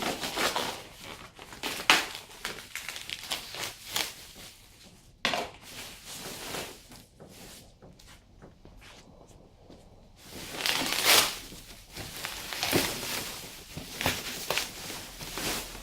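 Packaging being crushed, crumpled and torn by hand in irregular bursts, with a quieter stretch in the middle.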